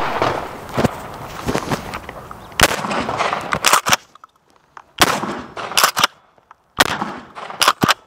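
Kel-Tec KSG 12-gauge bullpup pump shotgun firing high-velocity buckshot several times. Each loud shot is followed by a quick run of clacks as the pump is racked.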